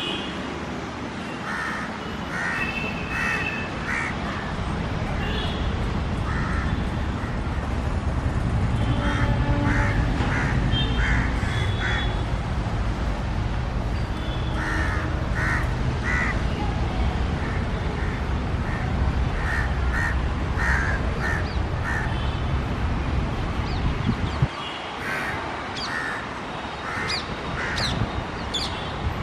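Crows cawing over and over in short runs of calls, over a steady low rumble that cuts off suddenly near the end.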